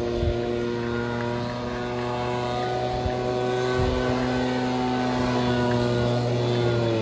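Small petrol engine of a handheld garden power tool running steadily at high speed, its pitch just beginning to sag at the very end as it runs out of fuel.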